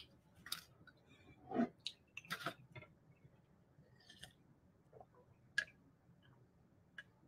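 Faint, scattered soft clicks and handling sounds of a paper napkin being used to wipe the fingers, then a glass mug being lifted and drunk from, with a slightly louder soft rustle about one and a half seconds in.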